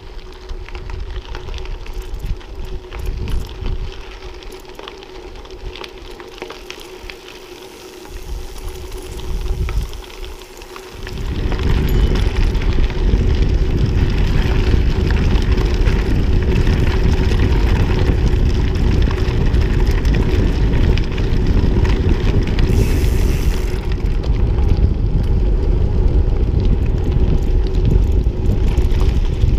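Wind buffeting the microphone while riding a trekking bike, gusty and moderate at first, then a loud steady rumble from about eleven seconds in.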